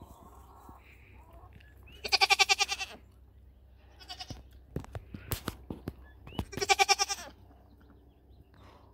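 Nigerian Dwarf dairy goats bleating: two loud, quavering bleats of just under a second each, about two seconds in and again near the end, with a shorter, fainter bleat between them. A few sharp clicks come between the second and last bleats.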